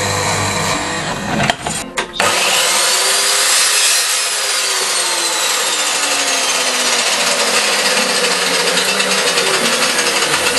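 Power saw running steadily and cutting wood, with an abrupt break about two seconds in where the recording cuts from one saw to another.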